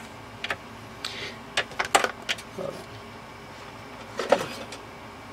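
Handling noise: a series of sharp clicks and light taps, busiest about two seconds in, with another about four seconds in.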